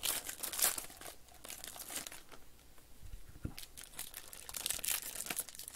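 Foil wrapper of a Panini Spectra baseball card pack crinkling and tearing as it is pulled open by hand, with a quieter lull in the middle and a low thump about three and a half seconds in.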